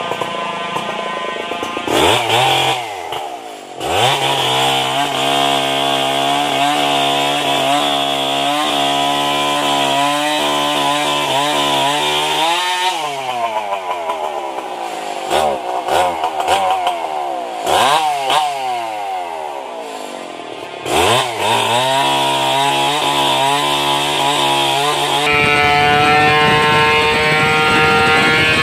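Two-stroke chainsaws cutting into the trunk of a merbau tree, held at full throttle under load and dropping off and revving back up several times. Near the end the sound changes to a second saw running steadily at a higher pitch.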